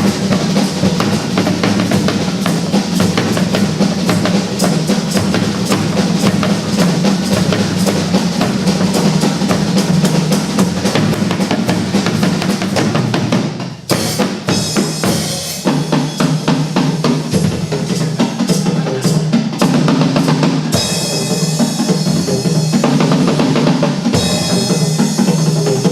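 Music: a drum-heavy instrumental passage with a steady beat, dropping out briefly about fourteen seconds in before the drums come back.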